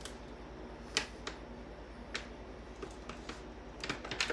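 A handful of faint, separate clicks or taps, the clearest about a second in, over a faint low hum.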